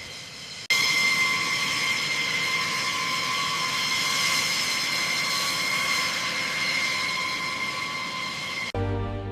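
Jet fighter engines running with a steady high whine over a rush of noise; it cuts in abruptly under a second in. Music takes over just before the end.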